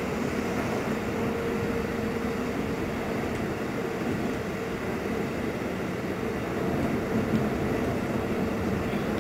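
Keikyu 600 series electric train running at speed through a tunnel, heard from inside the car: a steady rumble of wheels and running noise, with a faint steady hum.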